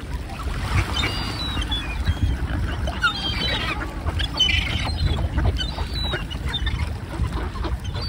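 Gulls and ducks calling in short, pitch-bending cries every second or so, over a steady low rumble of wind on the microphone.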